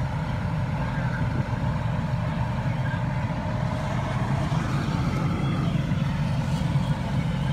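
Fire engine's motor running steadily at close range while pumping water to its roof-mounted water cannon, a continuous low drone with a hiss above it.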